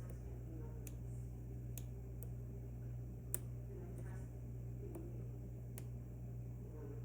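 Small, sharp clicks of a pick and flag tool working the side pins of an Assa Twin V10 high-security lock under tension. There are about seven scattered clicks, the loudest a little past three seconds in, over a steady low hum.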